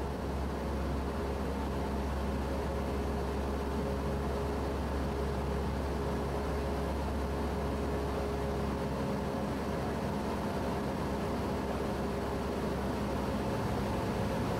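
Cessna 172S's 180 hp four-cylinder Lycoming engine and propeller droning steadily in flight, heard from inside the cabin, with a low hum that thins out about nine seconds in.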